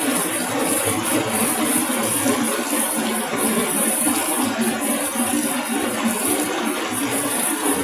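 Vegetable washing and peeling machine running, with produce tumbling and rattling inside it in a steady, dense noise.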